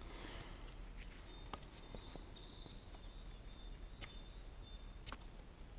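A few light, sharp clicks and taps of carved green beech sticks knocking together as they are handled, over a quiet background hiss.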